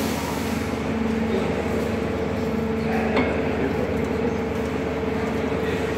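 Risco RS 450 paddle meat mixer running: the drive motor and gearbox turn the paddle shafts with a steady hum and a held tone. A brief tap about three seconds in.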